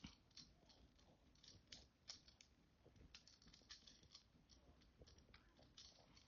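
Faint, scattered clicks and light taps of small plastic toy pieces being handled and pulled apart.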